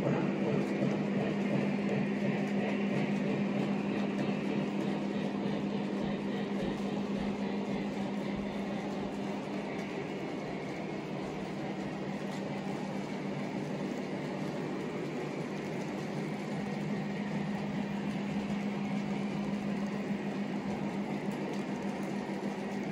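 O-gauge model passenger cars rolling along three-rail track: a steady rumble of wheels on the rails with a low hum under it.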